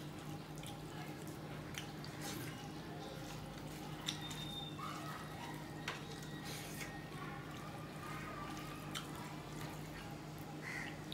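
Close-up eating sounds of a man eating rice with fish curry and dal by hand: wet chewing and mouth noises, with scattered small clicks as his fingers mix rice on a steel plate. A steady low hum runs underneath.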